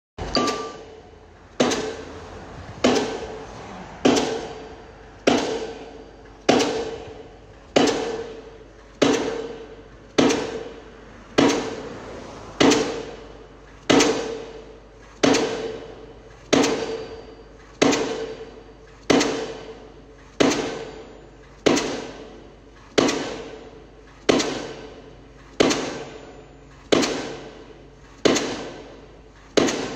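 A steady run of sharp strikes, about one every second and a quarter, each with a short ringing tail.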